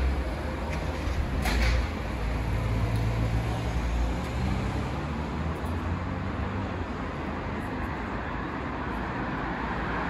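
City street traffic: road vehicles passing with a steady low rumble that swells and eases, and a brief sharp sound about a second and a half in.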